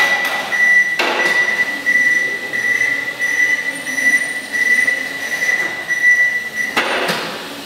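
Warning beeper on a 1996 Still electric counterbalance forklift sounding a high beep about twice a second while the truck is driven and manoeuvred. The beeping stops near the end, with a short rush of noise.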